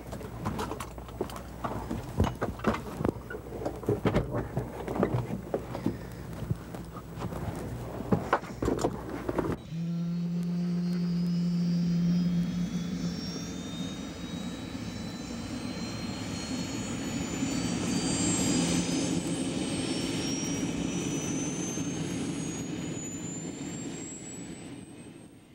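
Helicopter turbine engine sound. First come about ten seconds of irregular clicks and knocks over a low hum. Then it changes suddenly to a steady drone with a whine that rises slowly in pitch as the engine spools up, swells, and fades out near the end.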